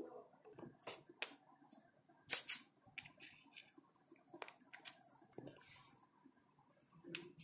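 Faint, scattered clicks and taps of hands handling modelling clay and a plastic plate, with a brief soft rubbing a little past halfway as the clay is rolled into a thin rope.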